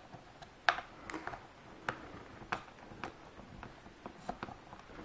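Small screwdriver driving a screw into a quadcopter's plastic landing-gear leg: light, irregular clicks and ticks, about a dozen, as the driver turns and repositions in the screw head and the plastic parts shift.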